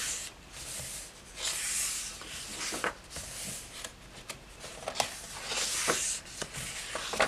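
Thick paper pages of a hardback coloring book being turned by hand: two papery swishes about four seconds apart, with light rubs and taps of fingers on the paper between them.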